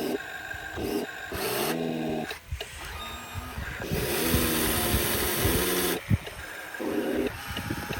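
Electric motors and gearing of RC construction models whining in short runs that start and stop, their pitch rising and falling as they speed up and slow down, with a sharp knock about six seconds in.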